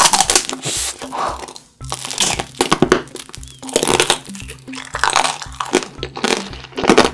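Crunchy bites and chewing of roasted marshmallow tanghulu, its hard candied-sugar shell cracking in a series of short crunches about once a second, with background music underneath.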